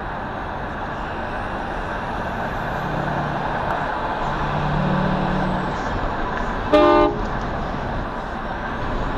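Steady road and engine noise of traffic, with one short car horn toot about seven seconds in.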